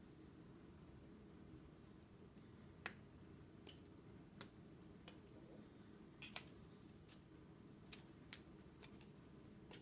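Sharp, irregular clicks over a faint low hum, about ten of them, the loudest a little under three seconds in and one past six seconds in.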